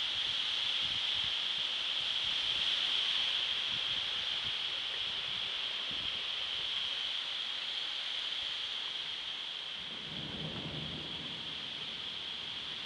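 Heavy thunderstorm downpour: a steady hiss of rain, with a short low rumble of thunder near the end.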